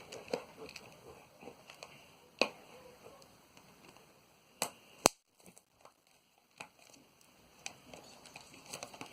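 Plastic shrink-wrap on a cardboard trading-card blaster box being picked and scratched at to tear it open, giving scattered small crinkles and a few sharp clicks, the loudest about five seconds in.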